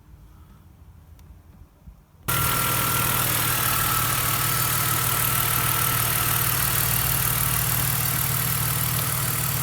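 BMW car engine idling steadily. It comes in abruptly about two seconds in, after a quiet stretch.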